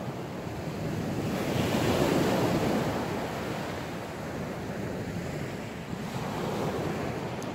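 Sea waves breaking and washing up the beach, one swell peaking about two seconds in and another building near the end, with wind buffeting the microphone.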